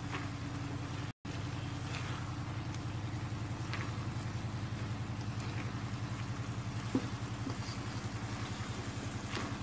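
Spatula scraping and stirring shredded tuna filling around an aluminium wok, a few short scrapes, over a steady low pulsing hum from a motor or engine. The sound drops out briefly about a second in.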